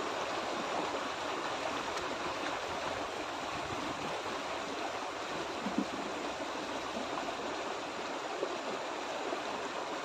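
Small rocky stream rushing steadily over a low cascade of rocks. One brief tap a little past the middle.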